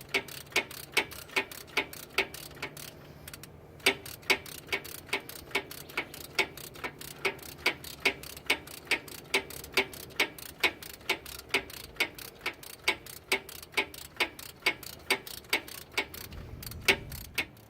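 Hand ratchet wrench clicking in short, even strokes, about two clicks a second, with a brief pause about three seconds in.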